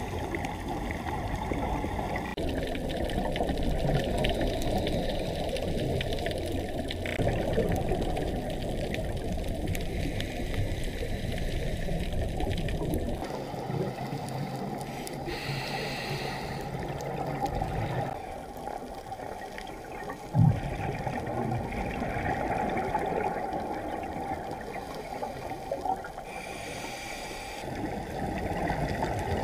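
Underwater ambient sound picked up by a diving camera: a steady, muffled rush of water noise, with two brief hissing bursts and a single short thump about two-thirds of the way through.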